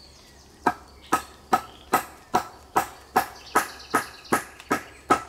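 A knife being batoned into the end of a small log: a baton strikes the blade's spine about twelve times in a steady rhythm, about two and a half blows a second, driving the blade deeper into the wood.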